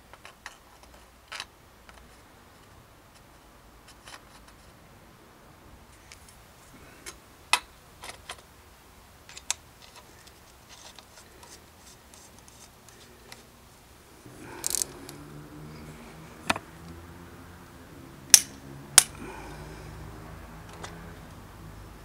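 Scattered sharp metallic clicks and clinks of an Octalink bottom bracket cartridge being threaded into a steel bicycle frame, then an XTR crankset being fitted onto its spindle with a hex key. A low steady hum joins about two-thirds of the way through.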